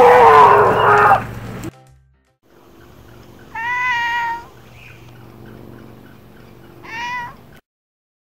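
A loud, shrill cry in the first second and a half. Then, after a brief break, two meows: a long one about three and a half seconds in and a shorter one near the end.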